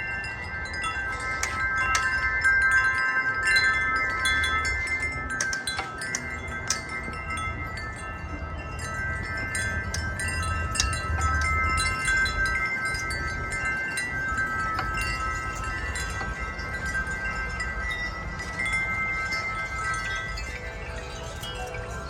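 Metal wind chimes ringing in gusty wind: many overlapping tones struck again and again. A low wind rumble on the microphone swells about halfway through.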